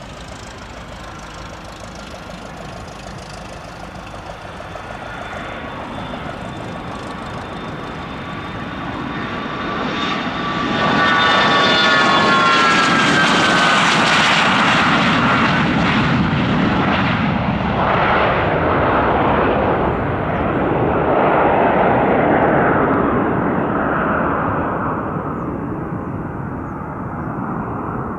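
Bombardier Challenger 300 business jet's twin Honeywell HTF7000 turbofans at takeoff power: a roar that builds as the jet rolls and climbs out. It is loudest from about a third of the way in, where a high whine slides down in pitch as the jet passes, then the roar eases off toward the end.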